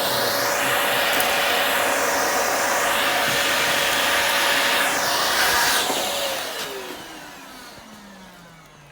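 Samsung bagged vacuum cleaner running at full suction with a steady whine and rushing air. About six seconds in it is switched off, and the motor winds down with a falling pitch as the noise fades.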